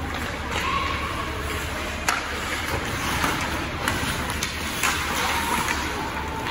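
Ice hockey play on a rink: a steady scrape of skates on the ice with scattered sharp clicks and knocks of sticks and puck, over a low arena hum.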